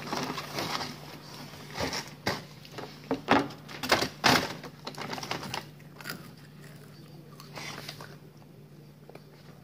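Brown paper fast-food bag rustling and crackling as a hand rummages in it: a string of sharp crinkles, loudest around the middle, then softer handling.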